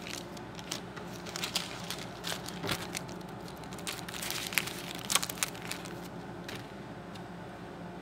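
Paper being crumpled and handled, a quick run of crinkles and crackles that is busiest in the middle and dies away about six and a half seconds in, over a low steady room hum.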